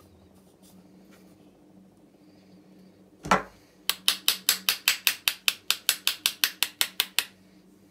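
Small ball-pein hammer tapping the metal end of a bait boat electric motor to knock it back together: one knock about three seconds in, then a quick run of about twenty light, sharp metal taps, about six a second.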